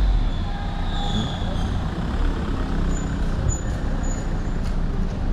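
Road traffic with a car driving past close by, over a steady low rumble. A few short high chirps come about three to four seconds in.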